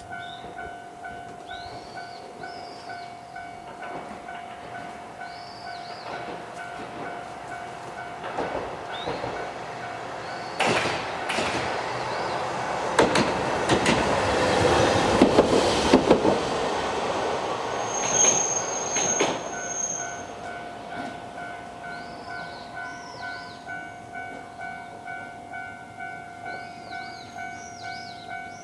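Level-crossing warning bell ringing in a steady "kan-kan" rhythm of about two strokes a second, while a Hankai Tramway tram passes through. The tram's wheels clack over the rail joints, loudest in the middle, and a brief high squeal comes near the end of the pass.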